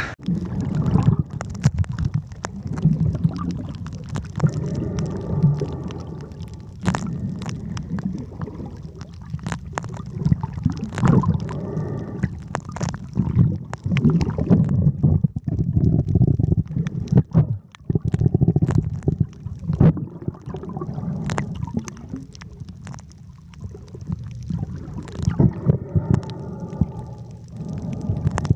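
Muffled underwater noise of seawater moving against a submerged camera: a low rumble with many scattered clicks and pops.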